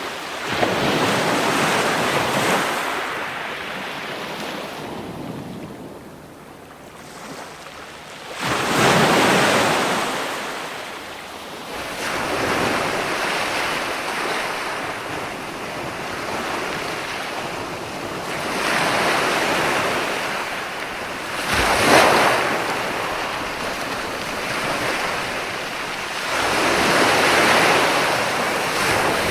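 Ocean waves breaking and washing on a shore: a surging, hissing wash that swells and falls back every few seconds, with one sharper wave breaking about three-quarters of the way through.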